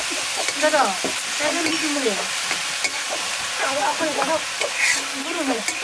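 Leafy greens and potato pieces sizzling as they fry in a black iron wok, stirred with a metal spatula that scrapes along the pan in repeated strokes, with a few sharp knocks of metal on metal.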